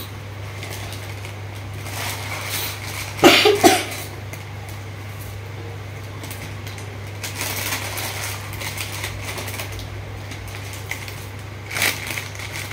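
A spoon stirring noodles in a metal frying pan on a gas stove, scraping and ticking, with a loud ringing clank or two about three seconds in. A steady low hum sits underneath. Near the end, a plastic noodle packet crinkles.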